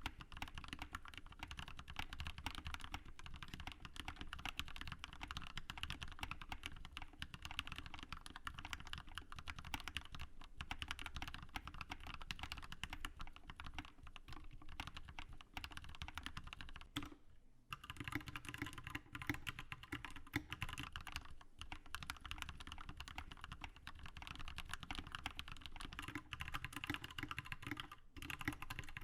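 Steady, fast typing on a GK61 60% mechanical keyboard with lubed, filmed Gateron Milky Yellow linear switches, PE foam mod and PBT keycaps: a dense run of key clacks with a brief pause about seventeen seconds in.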